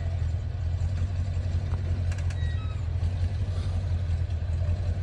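Off-road vehicle's engine running steadily at low revs, with a steady low hum, as it crawls over the trail.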